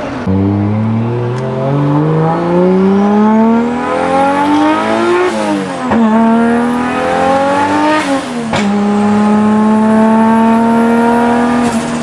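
Straight-piped Nissan Skyline R34 straight-six, heard from inside the cabin, accelerating hard through the gears. The pitch climbs for about five seconds and drops at a gear change, climbs again, then drops at a second change near eight seconds. After that it holds a steady pitch.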